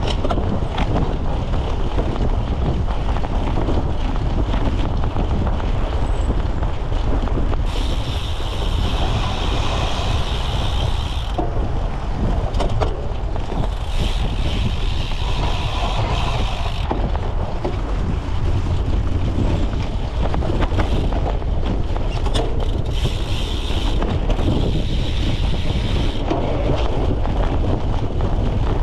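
Wind buffeting a bike-mounted camera's microphone with a steady low rumble, mixed with the rattle and knocks of a cyclocross bike riding over rough ground. A higher hiss comes and goes three or four times.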